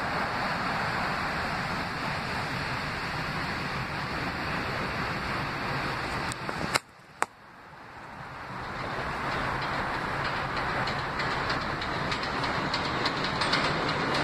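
New York City subway train of R160-series cars approaching on an elevated track, its rumble growing steadily louder through the second half, with wheel clicks over the rail joints starting near the end. Before that, a steady rushing noise, cut about seven seconds in by two sharp clicks around a brief dropout.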